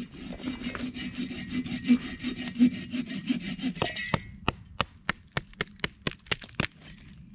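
Hand saw cutting through a green branch in rasping back-and-forth strokes, about three a second. After about four seconds the sawing stops and gives way to a run of sharp dry clicks, about three a second.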